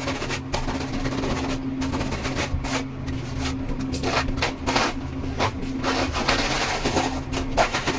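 A machine running with a steady hum, under irregular scraping and knocking.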